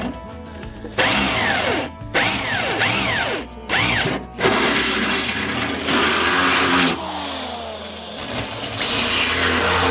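Electric drill boring pre-marked holes through a metal seat base: several short trigger bursts with the motor spinning up and down, then a longer run about halfway through, and another near the end.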